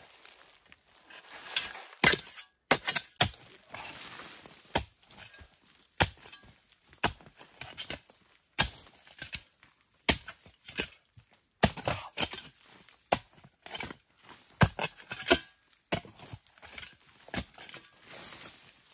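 Long-handled digging hoe chopping repeatedly into earth among bamboo roots: sharp, irregular strikes about once a second, with loose soil scraping and crumbling between them.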